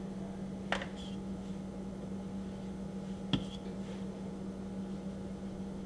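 Steady low hum with two small sharp clicks, one just under a second in and one a little past three seconds.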